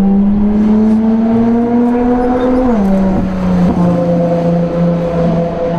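Race car engine sound: one steady engine note that slowly climbs in pitch for about the first half, then drops and holds at a lower note.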